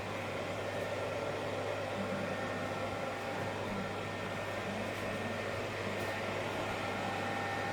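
Steady whir of a fan or air-conditioning unit with a constant low hum underneath.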